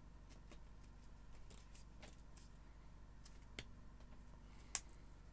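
Faint scattered clicks and light scrapes of small fuze parts being handled and pushed into a cardboard tube, with one sharper click near the end, over a steady low hum.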